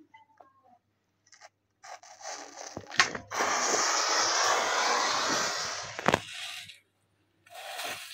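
Paper model lander catching fire from a match and flaring up: a rush of burning noise that builds for about a second and then runs steadily for about three seconds, with a sharp click at its start and another near its end.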